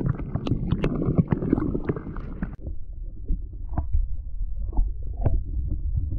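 Creek water heard through a submerged camera: sloshing with sharp clicks for the first two and a half seconds, then the higher sound cuts off suddenly and only a muffled low rumble with soft knocks remains as a hand holds a sunfish in the water.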